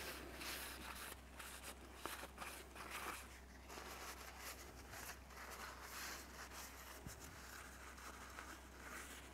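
Faint, irregular rubbing and rustling of a cloth rag wiping down the machined metal sealing surfaces of a cylinder head and cam cover, over a low steady hum.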